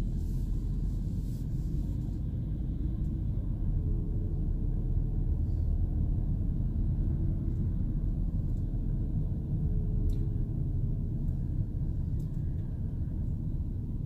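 Low, steady rumble of a van's engine and tyres on the road, heard from inside the cabin while driving slowly, with a faint engine note that wavers a little.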